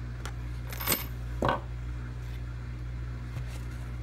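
Two brief clinks of small metal hardware being handled, about a second and a second and a half in, as a jump ring is closed with pliers and the purse's metal chain is moved. A steady low hum runs underneath.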